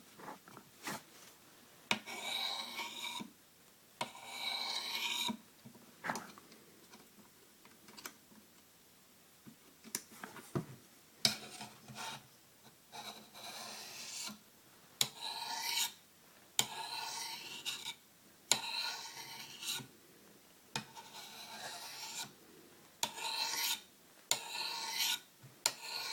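Knife blade drawn in repeated strokes along a Sharpmaker ceramic stone, each scraping pass about a second long with short pauses between, sharpening a chisel-ground edge. A quieter stretch in the middle holds only a few light clicks.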